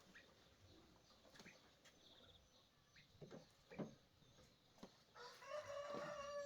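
Rooster crowing once: a long, held call that starts about five seconds in, over faint scattered taps and clicks.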